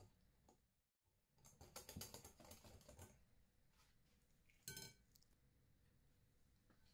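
Faint clicking and scraping of a metal wire whisk against a glass bowl as batter is whisked, then one ringing clink of the whisk against the glass nearly five seconds in.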